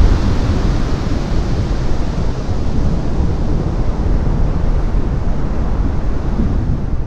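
Heavy surf from huge breaking ocean waves: a steady, loud rumbling wash of noise, with wind buffeting the microphone.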